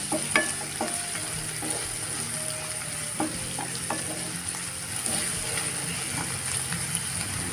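Chopped onions and green and dried red chillies sizzling in oil in a nonstick kadai while a spatula stirs them, with occasional clicks of the spatula against the pan. The onions are being fried toward light golden.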